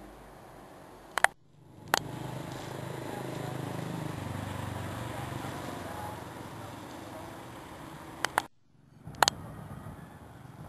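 Steady outdoor background noise with a low hum, broken twice by a short silent gap framed by sharp clicks: the marks of recording cuts between shots.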